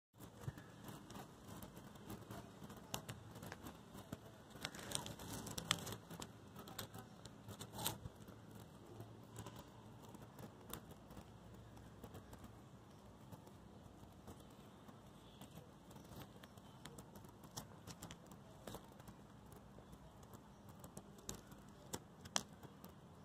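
Faint rustling and crackling of dry grass and fallen leaves, with scattered light clicks and crunches, a little busier in the first third.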